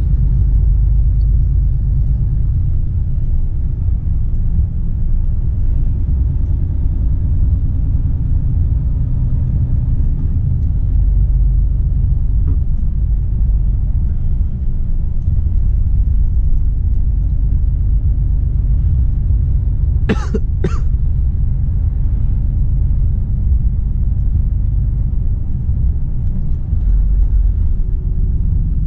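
Volvo FH 460 truck's 13-litre straight-six diesel running steadily on the road, a constant low rumble. About twenty seconds in, two short coughs come close together.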